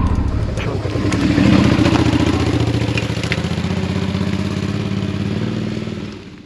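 2008 Suzuki V-Strom 650's V-twin engine running steadily, swelling slightly about a second and a half in and fading out near the end.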